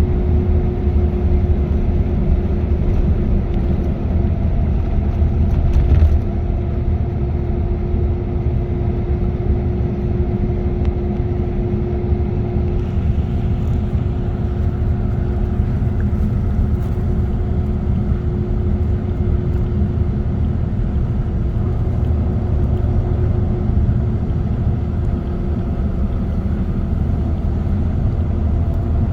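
Car travelling at expressway speed: steady tyre and wind noise with a low engine and road hum.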